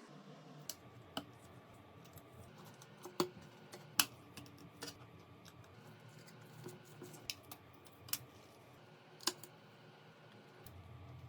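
Scattered light clicks and taps, about eight, at irregular intervals, from parts and small tools being handled on a smartphone under repair.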